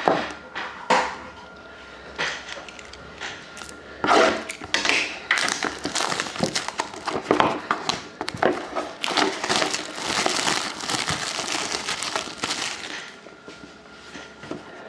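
Plastic wrapping crinkling and tearing as a sealed trading card box is unwrapped and opened, with small clicks and handling noises. The crinkling is scattered at first, then dense and continuous for most of the middle before it thins near the end.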